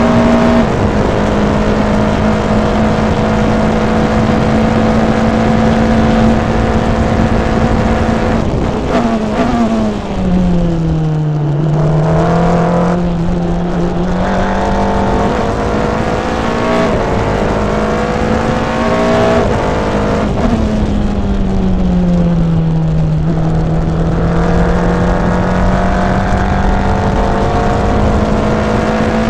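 Formula Renault 3.5 single-seater's V6 engine heard from the cockpit at racing speed: a high, steady note on the straight with an upshift just after the start, then downshifts with the pitch falling as the car brakes for a corner about nine seconds in, before climbing again on the throttle. A second slowdown with falling pitch comes around twenty seconds in, followed by acceleration that builds to the end.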